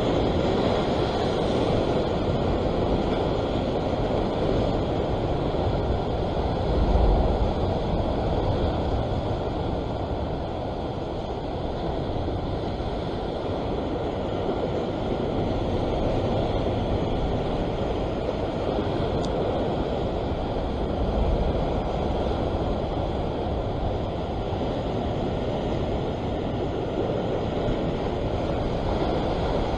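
Sea surf surging and washing around a rock ledge, a steady rushing of white water, with wind on the microphone. Two brief low rumbles stand out, about seven seconds in and again about twenty-one seconds in.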